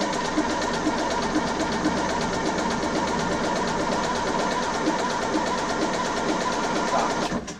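Westerbeke 40 marine diesel engine being started: a steady, fast, rhythmic mechanical sound that cuts off suddenly near the end.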